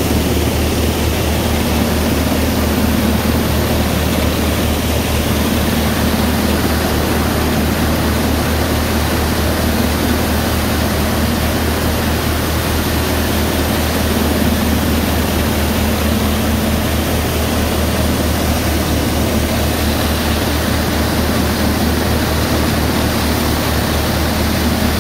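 Dasmesh thresher running steadily under load, driven by an old Massey Ferguson tractor, as crop is fed through it. A continuous dense rushing whir from the drum and fan sits over the tractor engine's low, even hum.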